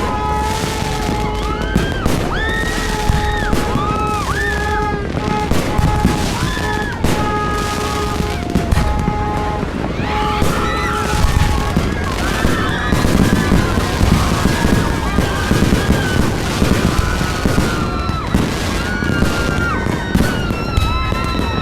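Fireworks crackling and banging in a dense, continuous barrage, with music playing at the same time.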